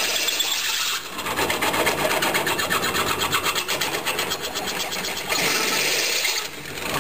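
Drill press with a 3/8-inch cobalt bit cutting a hole through clamped metal plates. The motor runs steadily, then from about a second in the bit bites and gives a rapid, even scraping chatter that eases off near the end.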